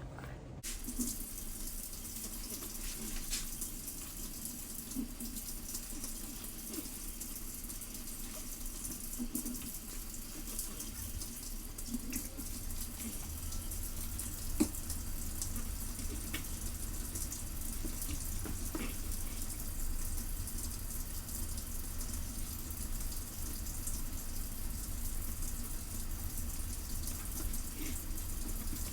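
Water running steadily from a tap, with a few light clinks and knocks scattered through it.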